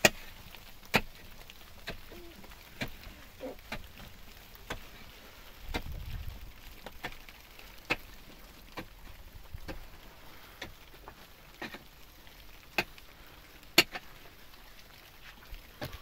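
A series of sharp knocks, irregularly spaced at about one a second, with a low gust of wind noise on the microphone about six seconds in.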